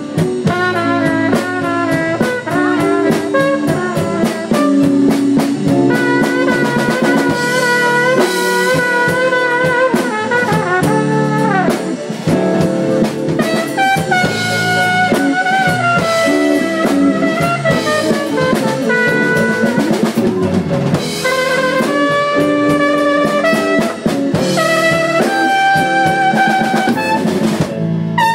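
Live blues band playing an instrumental break: a drum kit keeps time under a lead instrument playing melodic lines that bend and slide in pitch.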